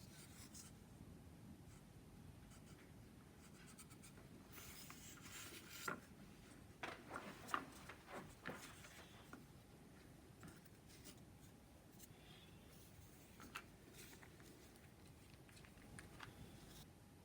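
Faint sounds of hands working balsa wood parts on a bench: a scratchy rub a few seconds in, then a cluster of light clicks and taps, and a few scattered ticks later.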